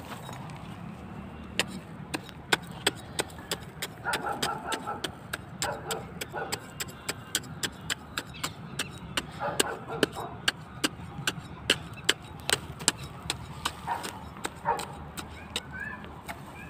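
A small hand hoe striking and scraping dry, cloddy soil over and over, sharp irregular knocks about two to three a second, as the ground is dug for sowing seeds.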